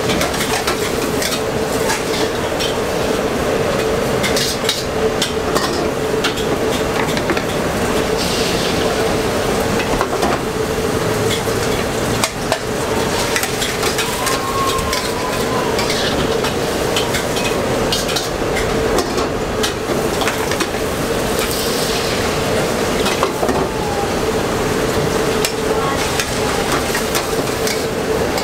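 Metal ladle scraping and clicking against a steel wok while pad thai is folded into a thin egg wrap over a gas burner, with food sizzling and a steady hum underneath.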